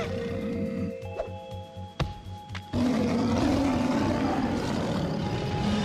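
Dramatic cartoon score with held notes. From about three seconds in, a giant black cartoon cat gives a loud, drawn-out roar over the music.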